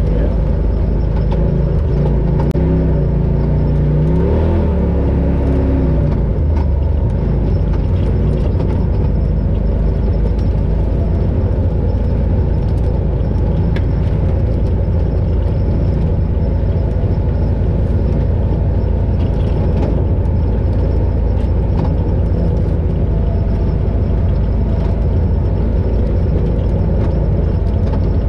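Polaris RZR Pro XP side-by-side running steadily off-road: a continuous engine and drivetrain drone with low rumble. The engine note rises and falls a few seconds in.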